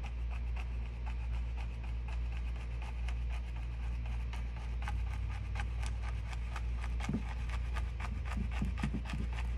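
Fan brush dabbing and stroking paint onto a stretched canvas in many quick, irregular strokes, over a steady low hum.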